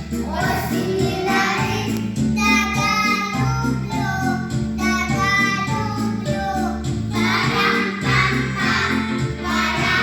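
Children's vocal group singing a song in unison over an instrumental accompaniment with a steady beat and repeating bass line.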